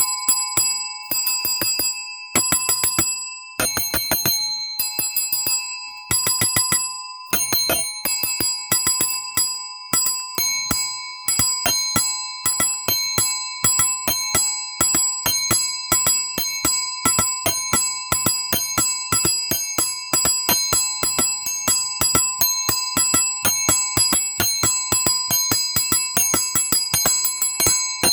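A small metal bell rung in quick repeated strikes, each with a bright ringing tone. It comes in short bursts with gaps at first, then rings on continuously at about three to four strikes a second.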